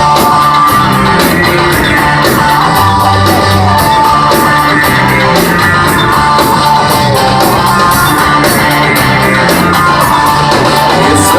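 Rock song's instrumental intro: a band playing with a steady beat, with no vocals yet.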